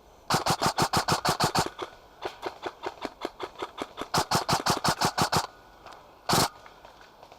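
Airsoft guns firing fully automatic bursts: two long strings of sharp, rapid shots, about ten a second, with fainter shots between them and a single short burst of noise near the end.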